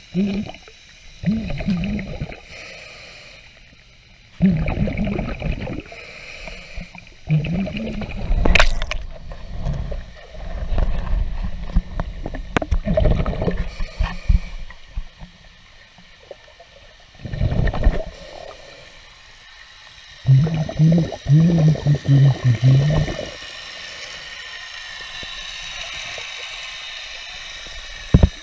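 Muffled sounds picked up by a camera held under lake water: irregular bursts of gurgling with low hums, and a sharp knock about a third of the way in. Near the end it settles into a steadier, quieter hiss.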